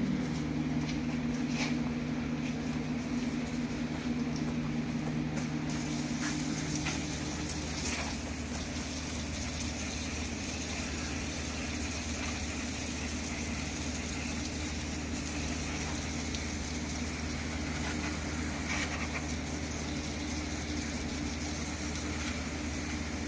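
Aerosol brake cleaner hissing steadily as it is sprayed onto a rear drum-brake assembly, starting about six seconds in. A low steady hum lies underneath, and several of its tones fade out soon after the spraying begins.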